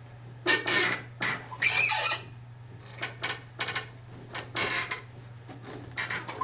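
Hand work on a carpet edge while it is stretched onto tack strip with a power stretcher: irregular scraping, rubbing and knocking, with a short squeak about a second and a half in.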